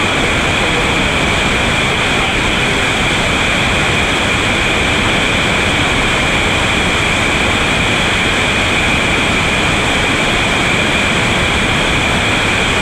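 Steady, unbroken rush of a big whitewater rapid on a river in high flood, at about 6,000 cfs.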